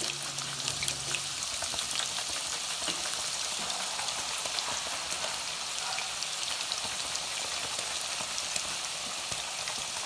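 Raw nendran plantain slices frying in hot oil in a steel kadai: a steady, dense sizzle full of fine crackles as fresh slices go into the oil. The hard bubbling shows the slices are not yet cooked through; it dies down once the chips are done.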